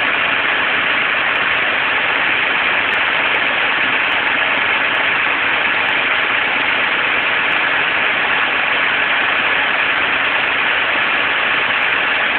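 Farm tractor engine running steadily, a continuous even drone with hiss, heard through a cellphone's microphone.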